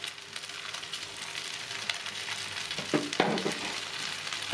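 Rice vermicelli with cabbage and bok choy sizzling in a non-stick wok as it is stirred and turned with a wooden spatula and a plastic slotted turner. A few scrapes and knocks of the utensils stand out about two seconds in and around three seconds in.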